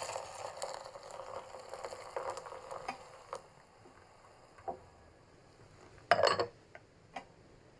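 Hot water poured over instant ramen noodles for about three seconds, then stopping. A short clatter follows about six seconds in, along with a few small knocks.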